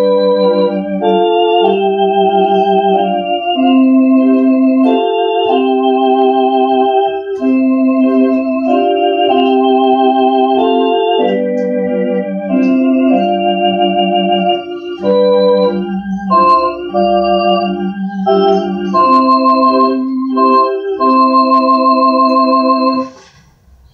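Electronic organ playing a slow, simple two-part exercise, held notes with a wavering vibrato, stopping about a second before the end.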